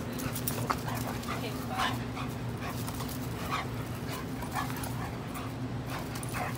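Two dogs play-fighting and tugging on a leash, giving many short vocal sounds in quick succession, over a steady low hum.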